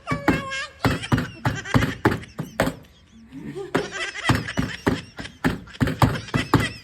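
Excited high-pitched voices shouting and laughing, with many sharp knocks and smacks mixed in, and a brief lull about halfway through.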